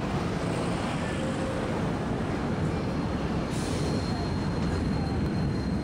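Electric city tram rolling along street rails into a stop over busy street noise: a steady low rumble. A faint steady high whine joins a little past halfway as the tram draws near.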